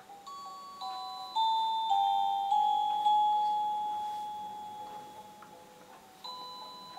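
A crib mobile playing a slow lullaby in chime-like notes, each struck and then fading: about six notes in the first three seconds, one long fading note, then the tune picks up again about six seconds in.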